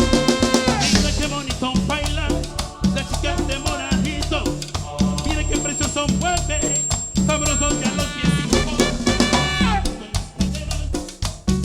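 A live band plays Latin dance music on drum kit, bass and melodic instruments, with a steady, driving beat.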